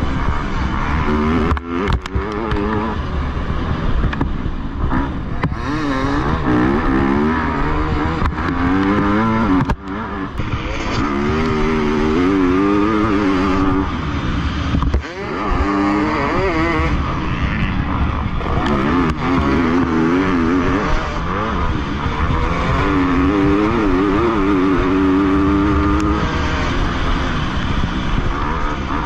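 Motocross dirt bike engine revving hard while racing: the pitch climbs and drops again and again with the throttle and gear changes. The sound cuts out sharply for a moment about two, ten and fifteen seconds in.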